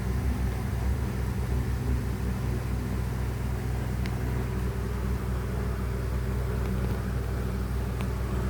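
A steady low machine hum, with a faint click about four seconds in and another near the end.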